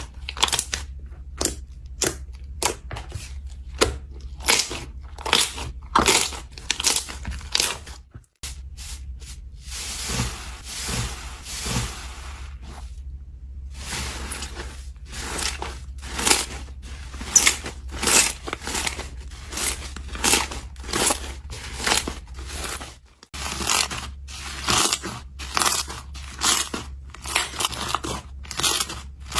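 Slime being squeezed and poked by hand, giving off rapid, irregular sticky pops and crackles several times a second. It briefly cuts out twice, at about eight seconds and again near twenty-three seconds.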